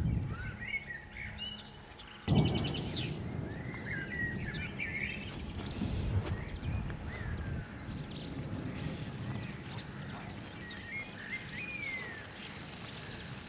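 Small songbirds chirping and singing, with a quick trill about three seconds in, over a low rumble that jumps up suddenly about two seconds in and then settles to a steady level.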